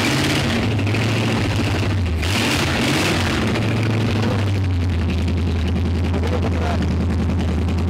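A freshly rebuilt flathead V8 running on a bench test stand just after its first start. It is blipped a couple of times at first, then settles into a steady idle from about halfway through.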